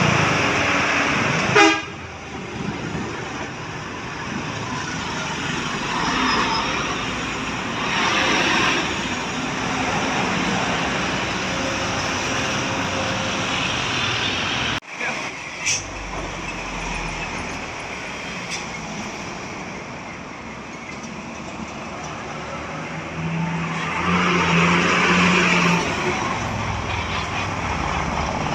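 Buses and traffic passing on a road, with engine and tyre noise swelling and fading several times. At the start a bus's telolet musical air horn sounds, then cuts off abruptly about two seconds in.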